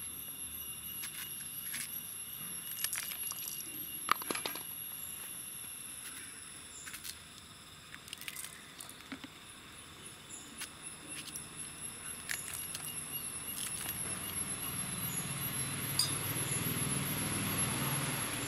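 Kitchen knife slicing fresh green chillies held in the hand: irregular crisp clicks every second or two as the blade snaps through the pods. A low rumble swells over the last few seconds.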